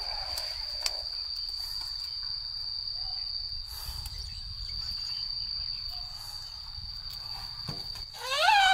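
Insects droning steadily on one high tone. Near the end, an Asian elephant gives a loud, high pitched squeaking call.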